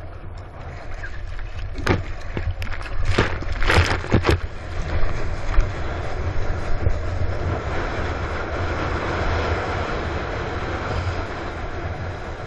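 Water rushing past a surfboard and wind buffeting the board-mounted camera's microphone as the board rides a wave, a steady low rumble with hiss over it. A few sharp splashes or knocks come between about two and four and a half seconds in.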